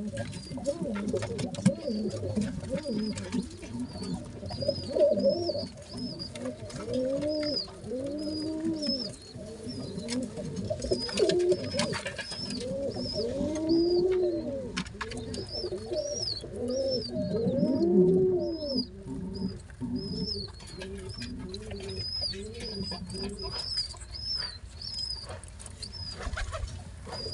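Pigeon squabs squeaking thinly and repeatedly as they beg and take food from the adult's beak, over low rising-and-falling coo-like calls. Scattered clicks and rustles run through it.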